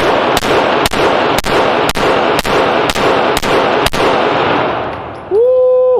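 Rapid gunfire at a shooting range: about nine shots, roughly two a second, with heavy echo ringing between them. The firing stops after about four seconds. Near the end a person lets out a long, drawn-out vocal exclamation.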